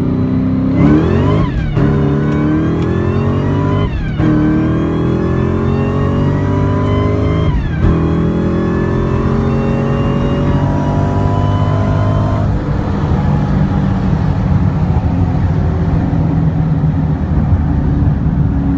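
Supercharged 4.6-litre DOHC V8 of a 2003–04 Mustang SVT Cobra ("Terminator") on a hard acceleration run, heard from inside the cabin. The revs climb and then drop at three upshifts, about a second and a half, four and eight seconds in. About twelve seconds in, the engine eases off to a steady cruise.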